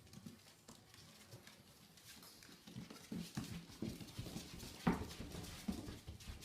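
A dog making a series of short, low sounds, with one louder, sharper sound about five seconds in.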